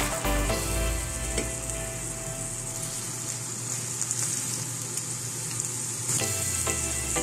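Bamboo shoots, shredded cabbage and ground pork sizzling in a hot wok as a spatula stirs them: a steady frying hiss.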